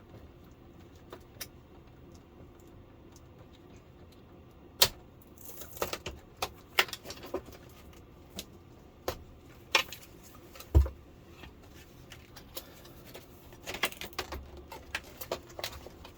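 Scattered clicks, clinks and knocks of tools, screws and plastic parts being handled while a flat-screen LCD TV is taken apart, with one heavier thump about eleven seconds in.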